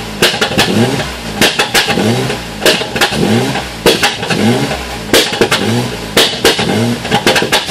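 Opel Vectra B i500's 2.5-litre V6 (X25XEI) revved in short throttle blips, about six in a row, each one rising in pitch and set off by sharp pops and crackles from the exhaust.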